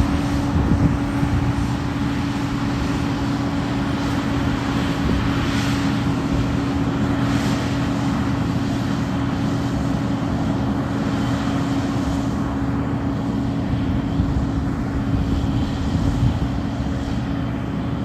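A vehicle engine running steadily, a constant droning hum that holds level throughout.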